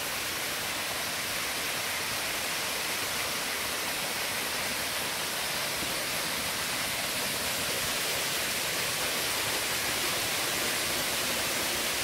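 Steady rushing hiss of a small waterfall pouring over rock into a pool.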